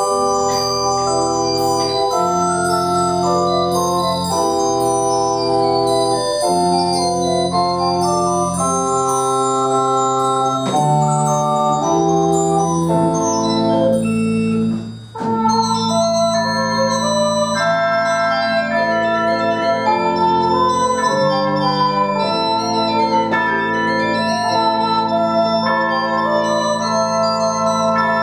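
Pipe organ playing slow, sustained chords that change every second or so. About halfway through, the music stops for a moment, then resumes with a trumpet playing long held notes over the organ.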